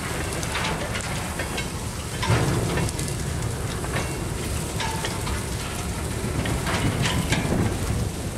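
Empty covered hopper cars rolling slowly past: a steady rumble and hiss of steel wheels on the rails, with irregular clicks and knocks from the wheels and couplers, and a short squeal about five seconds in.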